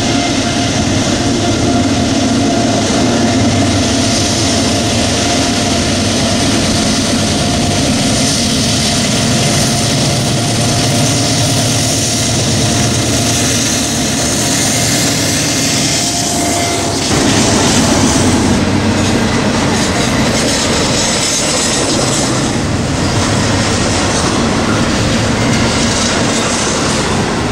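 Norfolk Southern diesel freight locomotives running out of a tunnel, followed by double-stack container cars rolling past on steel wheels. The sound changes abruptly about two-thirds of the way through.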